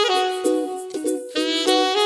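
Alto saxophone playing a melody phrase, notes changing about every half second, over a strummed ukulele accompaniment.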